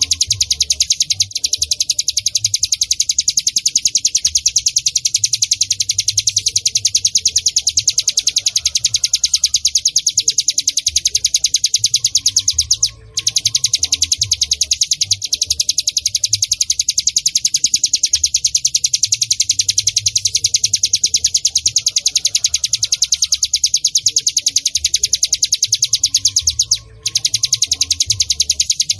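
Ciblek gunung (cigun) song: a fast, high-pitched trill of rapidly repeated notes, breaking off briefly about halfway through and again near the end.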